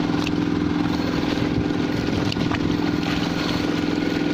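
A small boat engine idling steadily, with an even, unchanging low note.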